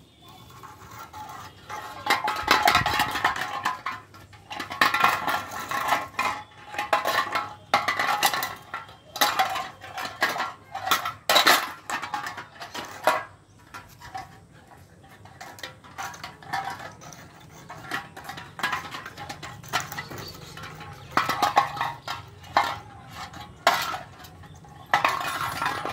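Metal leash chain on a German Shepherd puppy clinking and scraping on concrete as the puppy moves about, in irregular clusters of sharp clinks.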